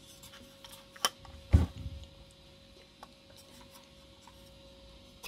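Handling noises as an Arduino Uno circuit board is fitted onto standoffs on a wooden base plate: a sharp click about a second in, then a louder, deeper knock, followed by lighter taps and rubbing.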